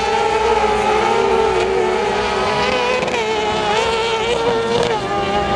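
Kart cross racing engines running hard at high revs, several at once, their pitch wavering up and down as they lift and accelerate through the corners.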